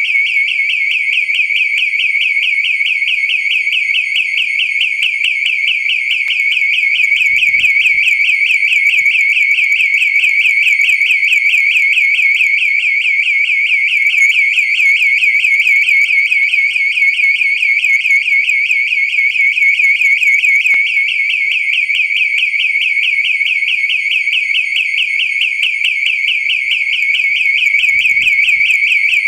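Electronic alarm sounding continuously: a high, rapidly warbling tone that pulses many times a second at an even rate.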